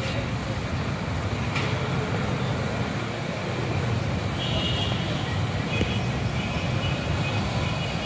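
Steady low road and engine rumble of a car driving, heard from inside the cabin. Faint high tones come in about halfway through.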